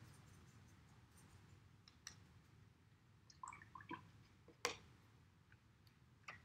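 Near silence with a few faint clicks and taps as a watercolor brush is swished in a plastic water cup and knocked against it, the sharpest tap a little past the middle.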